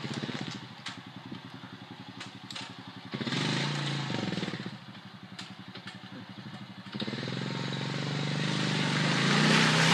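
Dirt bike engine running at low revs, picking up on the throttle for a second or so about three seconds in, then revving up again from about seven seconds in and growing steadily louder.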